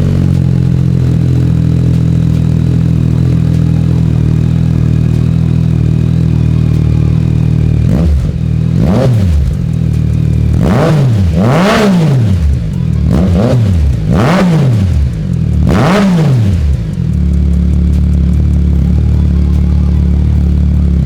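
Yamaha XSR900's three-cylinder engine breathing through an aftermarket Yoshimura AT2 stainless exhaust, idling steadily, then blipped about six times in quick throttle revs that rise and fall, before settling back to idle.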